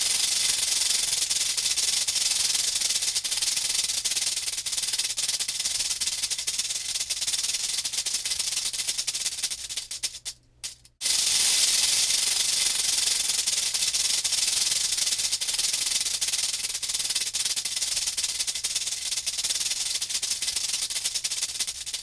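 Rattlesnake rattling its tail: a continuous dry, high-pitched buzz that breaks off about halfway through, starts again and fades near the end. It is the snake's warning signal.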